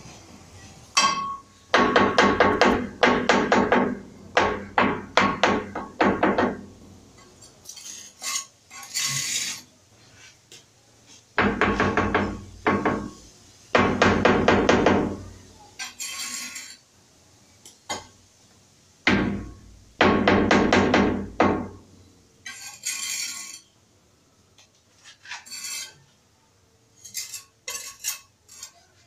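Steel trowel scraping over ceramic wall tiles and wet mortar: repeated rasping strokes in bursts a second or two long, with short pauses between them.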